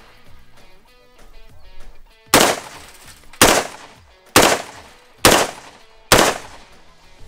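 Five 5.56×45mm rifle shots fired at a body-armor plate, about one a second, each a sharp crack with a short ringing tail.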